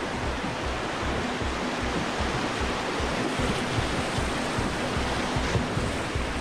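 Whitewater rapid rushing and churning around a canoe running through it, a steady loud roar of broken water, with low irregular buffeting on the microphone.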